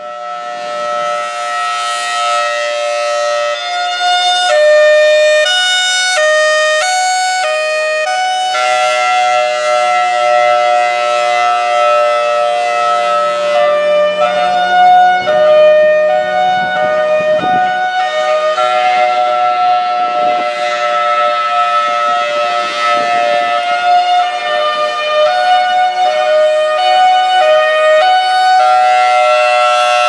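Federal Signal Thunderbolt 1003 outdoor warning siren sounding. It switches back and forth between two notes about every half second in a hi-lo pattern for several seconds, then holds both notes together as a steady chord, switching briefly again near the end.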